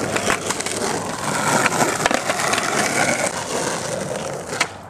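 Skateboard wheels rolling on rough asphalt: a steady rolling noise, with a few sharp clacks of the board.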